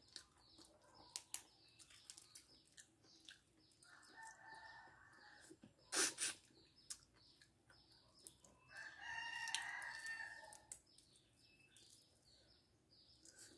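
A rooster crowing twice, each crow about two seconds long, the second louder. Soft clicks and taps of eating and egg peeling come between the crows, with one sharper knock about six seconds in.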